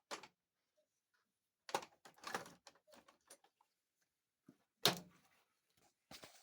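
Scattered knocks, clinks and short scrapes of hand tools and metal parts being handled on a TH400 transmission, with a cluster about two seconds in and the loudest knock about five seconds in.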